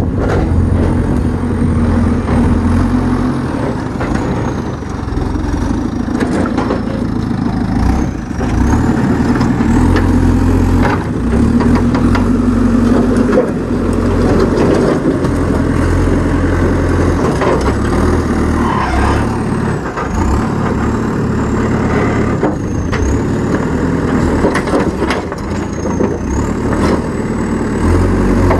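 Heavy diesel engine of construction machinery running, its note rising and falling as it works, with scattered knocks and clunks.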